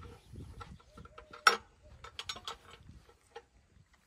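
Metal clicks and clanks from a combine harvester's cast-metal hub assembly being worked by hand with a bar, with one loud clank about a second and a half in and a run of lighter clicks after it.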